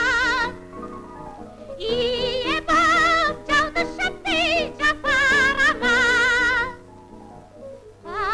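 A soprano voice singing long held notes with a wide vibrato over an accompaniment. The voice breaks off just after the start, comes back about two seconds in, and stops near the end, leaving the accompaniment alone and quieter.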